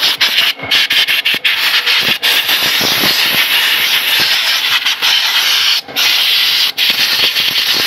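A pressurised spray nozzle hisses loudly in long blasts aimed into a drum brake backing plate. It breaks off briefly about half a second in, then twice more near the end.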